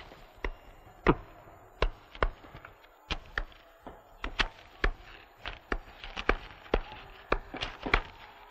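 Butcher's cleaver chopping meat on a wooden block: sharp knocks at an irregular pace, about two a second.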